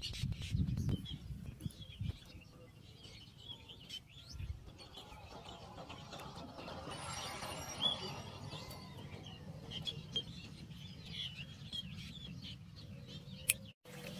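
Small birds chirping on and off, with a few dull thumps in the first couple of seconds and a swell of rushing noise around the middle. The sound drops out briefly near the end.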